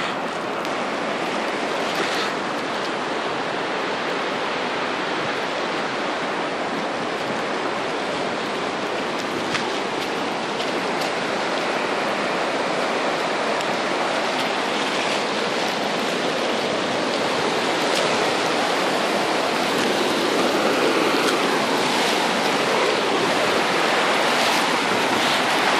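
River in flood: fast, muddy water rushing past in a steady, continuous noise that grows slightly louder toward the end.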